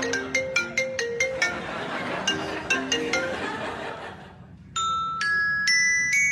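A marimba-style melody of short plucked notes, repeating a phrase like a phone ringtone, stops a little after three seconds; after a brief lull, bright glockenspiel-like chiming notes ring out, each held for about half a second.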